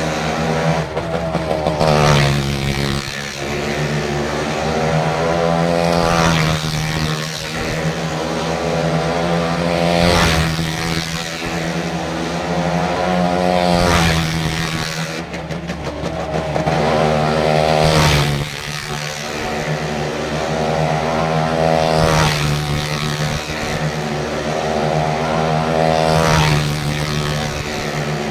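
Motorcycle engines revving, their pitch swelling and fading about every four seconds as they circle the wall of a well-of-death stunt arena.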